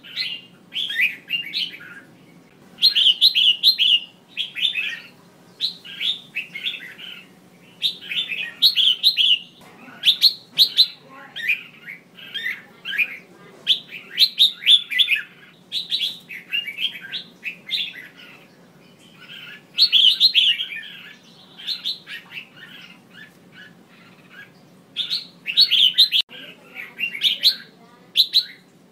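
Female red-whiskered bulbul calling: quick bursts of bright chattering notes, each a second or so long, with short pauses between. These are the calls of the kind played to rouse male bulbuls into singing.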